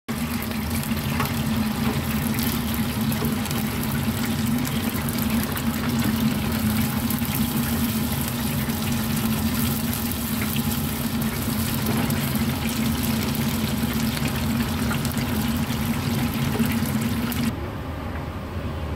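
Breaded chicken cutlets deep-frying in hot oil: a dense, steady sizzle and crackle of bubbling oil over a low hum. It cuts off abruptly near the end, leaving a duller, quieter hiss.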